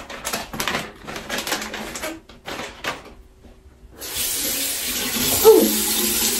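Water at a bathroom sink: short, irregular splashes for the first few seconds, then the faucet running steadily into the basin from about four seconds in.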